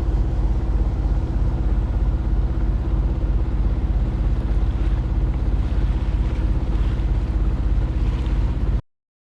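Sailboat's engine running steadily under way, a low even drone. It cuts off abruptly near the end.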